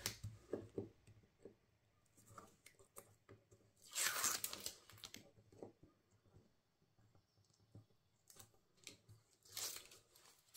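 Backing paper being peeled off strips of double-sided tape on a cardstock panel: a rasping tear about four seconds in and another near the end, with small paper rustles and taps between.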